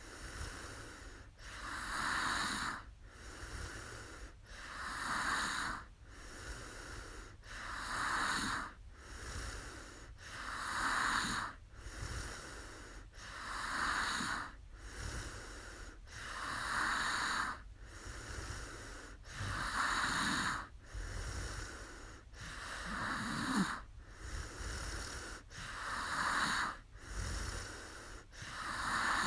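A woman snoring in her sleep, a breath about every three seconds: each cycle a louder, rasping breath followed by a quieter one.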